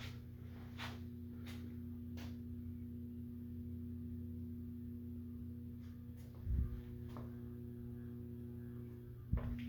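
Hugger ceiling fan motor running on a variable-speed control with a steady electrical hum, which is very loud on the variable speed. A few faint ticks come in the first seconds. Two soft thumps follow, one a little past the middle and one near the end, and the main hum tone drops out between them.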